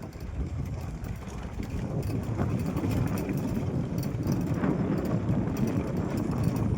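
A vehicle moving along on a ride, heard as a steady low rumble with no clear engine note.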